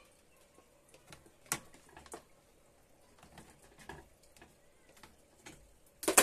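Scattered light clicks and knocks from handling an opened electric cooker, with the loudest, a short clatter, near the end, over a faint steady hum.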